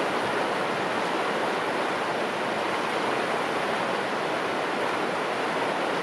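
Steady rush of flowing water, even and unbroken.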